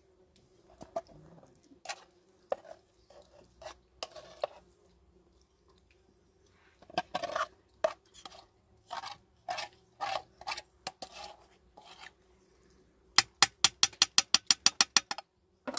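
Metal spoon scraping and clinking against a metal pan as a thick sauce is spooned out over chicken in a pot. Near the end comes a fast run of sharp taps, about seven a second, as the spoon knocks against the pan.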